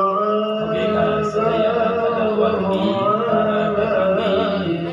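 Music with a voice singing long, wavering notes.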